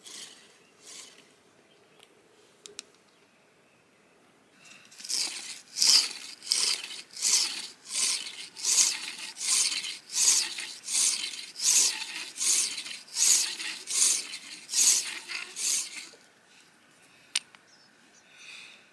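Primitive pump drill's point grinding into a small piece of shell on a flat stone. The scraping comes in rhythmic pulses about two a second, one with each pump stroke, starts about four seconds in and stops near the end.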